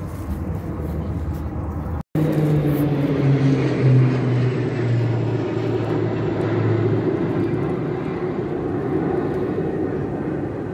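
Formation of propeller aircraft flying over: a steady engine drone that sinks slowly in pitch as they pass, then thins into a broad rumble about seven seconds in. The sound cuts out for an instant about two seconds in.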